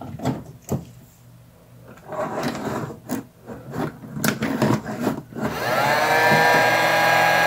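A few clicks as buttons on a PID temperature controller are pressed, then about three-quarters of the way in a Drill Master heat gun switches on: its fan motor spins up with a brief rise in pitch and settles into a steady whine. The controller is powering the heat gun through a solid-state relay because the enclosure, at 18 °C, is far below the 70 °C setpoint.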